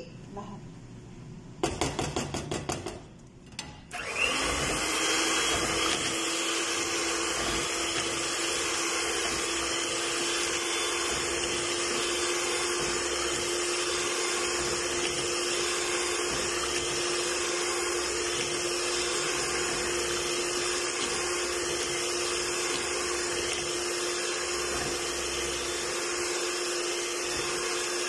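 Clattering for a couple of seconds, then about four seconds in a small electric hand mixer starts with a quick rising whine. It then runs steadily at one speed, its beaters whisking vanilla cake batter in a plastic bowl.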